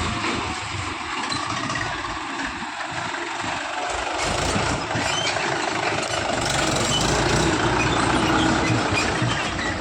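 Tractor diesel engine running, growing louder from about halfway through and easing off near the end.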